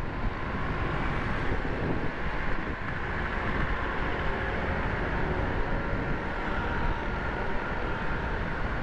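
Steady road noise of riding a motorcycle in city traffic: wind on the microphone over engine and traffic rumble, heaviest in the low end.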